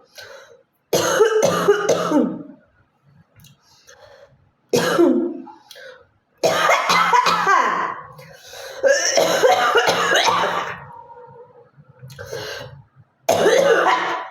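A woman coughing in five separate fits, some of them long and harsh, with hawking to clear phlegm from her throat. She says she has a bad cough.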